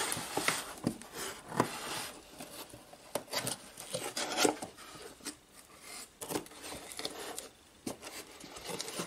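A cardboard tool box being handled and opened by gloved hands: irregular scraping, rubbing and light knocks of cardboard, with plastic wrapping rustling near the end.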